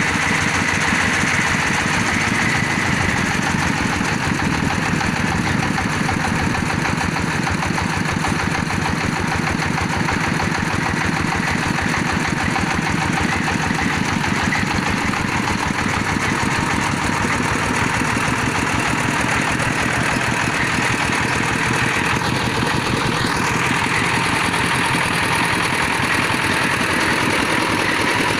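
Engine of a bore-well drilling machine running steadily at constant speed, its firing pulses even throughout.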